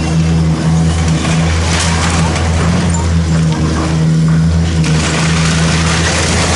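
Hydraulic excavator's diesel engine running steadily under load as its arm pulls down a brick-and-timber building. Demolition debris falls and clatters down about five seconds in.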